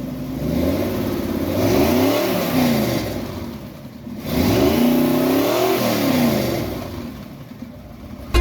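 1976 Dodge Power Wagon's 360 Mopar V8 with headers being revved twice, each time rising in pitch and falling back toward idle.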